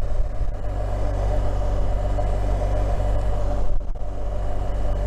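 BMW R1200 GS Adventure's boxer-twin engine running steadily under way, with wind and road noise; the sound dips briefly almost four seconds in.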